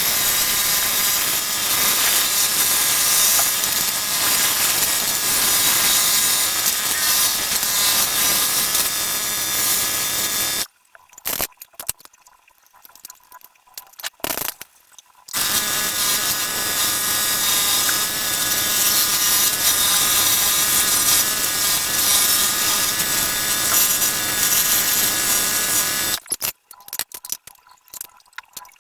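An electric power tool working wood, running with a steady whine in two long spells of about ten seconds each. It cuts off for a few seconds of quiet with light handling knocks in between, and stops again near the end.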